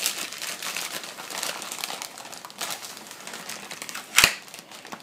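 Paper packaging rustling and crinkling as it is handled and unwrapped, with one sharp click about four seconds in.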